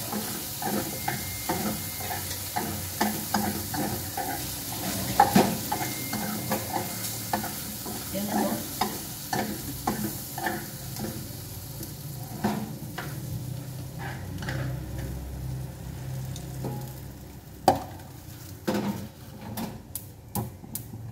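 Beef and onion sizzling in a frying pan while being stirred, with the utensil clicking and scraping against the pan. The sizzle dies down about twelve seconds in, and a few sharp knocks of cookware come near the end.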